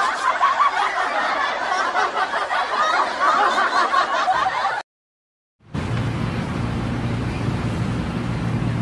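Laughing and noisy chatter, then after a brief cut to silence, a vehicle engine running with a steady low hum.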